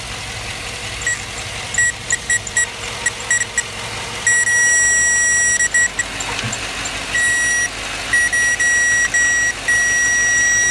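Handheld circuit-tester probe beeping a steady high tone as its tip makes and breaks contact on the alternator's output terminal. A string of short broken beeps starts about a second in, and longer held tones follow from about four seconds. The engine runs faintly underneath.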